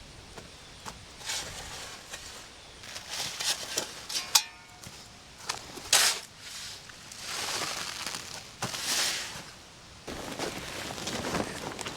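Woven geotextile fabric rustling and crackling as it is handled in gusty wind, in irregular bursts with a few sharp snaps.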